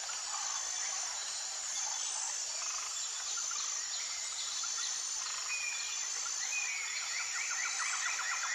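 Outdoor nature ambience: a steady high insect chorus with short, even high notes repeating about every second and a half. About two thirds of the way in, a rapid trilling call comes in lower down.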